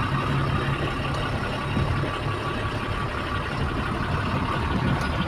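Tipper truck's diesel engine running steadily at low speed while the truck is driven and turned, heard from inside the cab.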